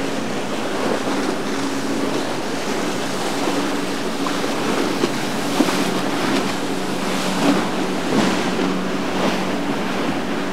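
Choppy wake water churning and splashing around a small aluminium outboard boat, over a steady low engine drone, with a few short sharp slaps of water now and then. Wind buffets the microphone.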